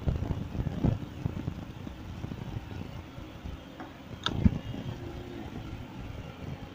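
City traffic and road rumble heard from a bicycle moving along a busy street, with one sharp click about four seconds in.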